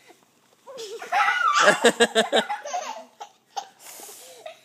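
A toddler laughing, a loud burst of quick repeated laughs starting about a second in and lasting about a second and a half, then trailing off into quieter sounds.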